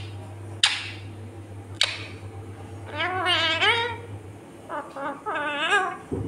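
Rose-ringed parakeet vocalising: two short sharp sounds in the first two seconds, then two longer wavering, warbling calls around the middle and near the end, over a steady low hum.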